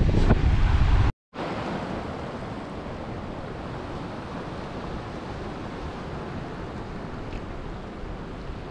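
Wind buffeting the microphone with a loud rumble, cut off abruptly about a second in. Then comes a steady wash of sea waves with some wind.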